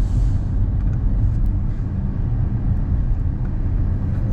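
Steady low rumble of a road vehicle in motion, engine and road noise running evenly.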